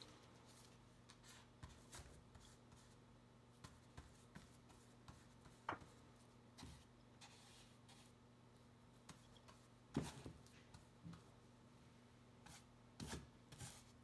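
Near silence: a faint steady low hum with scattered soft taps and short rubs of a brush mixing acrylic paint on a palette, the clearest about six and ten seconds in.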